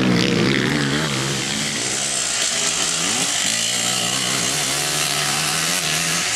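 Engine of a 250-class race quad being ridden hard, its pitch rising and falling again and again as the rider works the throttle and gears.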